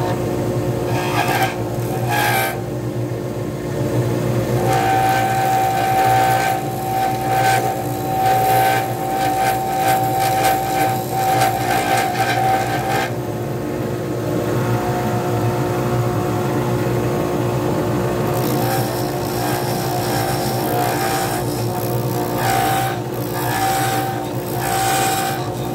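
A small pen-turning lathe runs with a steady motor hum while a hand-held turning tool cuts a spinning resin pen blank, scraping irregularly as it throws off plastic shavings. A higher steady whine is strongest for several seconds in the first half, then comes and goes.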